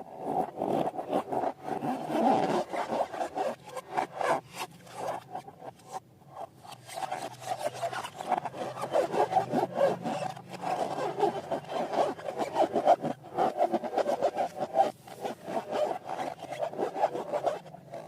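Slime being kneaded and stretched by hand: a dense, continuous run of small crackles and sticky, rubbing squelches.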